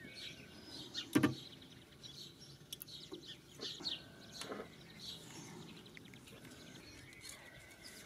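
Sunkko 737G pulse spot welder firing a two-pulse weld of a nickel strip onto a battery cell's terminal: one sharp crack about a second in. Light handling of the cell and strip follows, with birds chirping faintly in the background.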